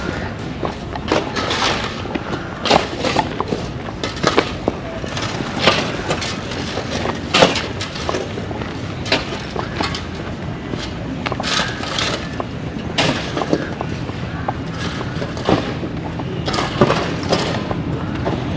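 Road construction site noise: a steady low rumble with irregular knocks and clatters scattered throughout.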